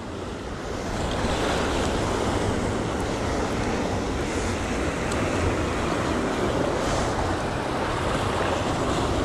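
Ocean surf washing and surging against rocks, a steady rushing noise, with wind buffeting the microphone.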